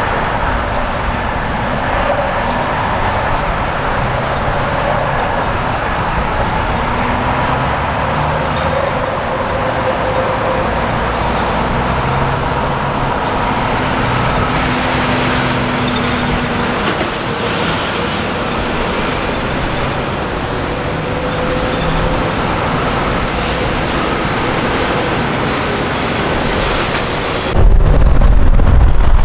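Heavy diesel trucks and traffic rolling past at low speed: a steady engine rumble over road noise. A little before the end the sound turns suddenly louder and deeper.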